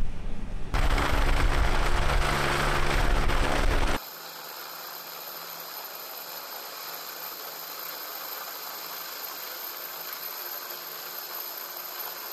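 Loud rumbling mechanical noise with a steady hum, cutting off abruptly about four seconds in to a quieter steady hiss and hum.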